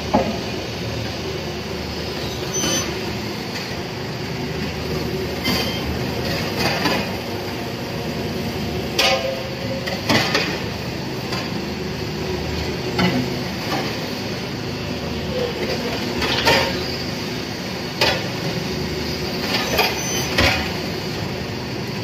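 Cement interlocking brick-making machine running steadily, with irregular metallic clanks and knocks every one to three seconds as bricks are pressed and handled.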